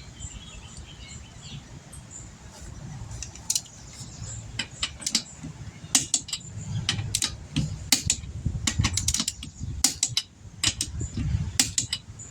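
Torque wrench ratcheting as wheel lug nuts are tightened to 90: clusters of sharp metallic clicks, starting a few seconds in.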